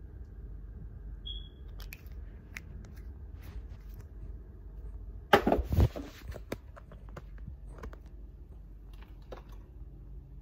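Handling noise from the phone recording it as it is moved: a loud, short rubbing scrape with a couple of thuds about five seconds in, with light taps and clicks scattered before and after over a low steady hum.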